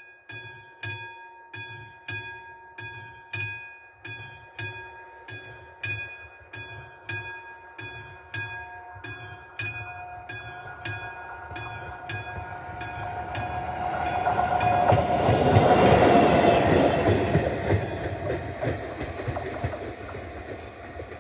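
Classic mechanical bell of an AŽD 71 level-crossing signal ringing, about one and a half strikes a second. A train approaches and passes the crossing, its rumble building to a peak about halfway through, drowning out the bell, then fading.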